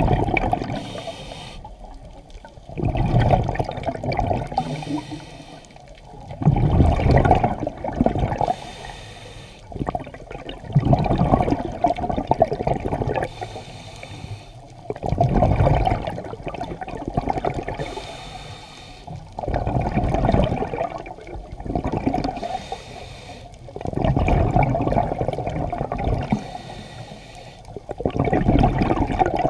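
Scuba breathing through a regulator underwater: a short high hiss of inhalation, then a bubbling rush of exhaled air, repeating about every four seconds.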